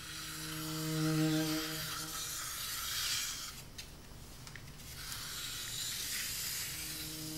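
Brush scrubbing paint on canvas: a dry, scratchy rubbing throughout. A sustained low bowed note, like a cello, fades out about two seconds in and comes back near the end.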